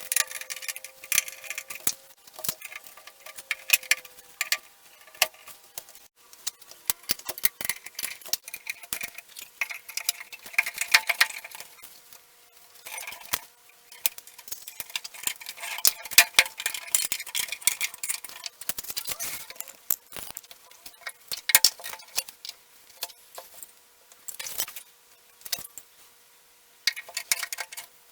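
Irregular small clicks and metal clinks of screws, fittings and tools being handled while a flat-pack wooden desk is put together.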